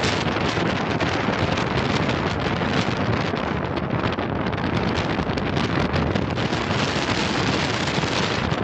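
Steady wind rush buffeting the microphone from a car's open side window at road speed, with the car's road noise under it.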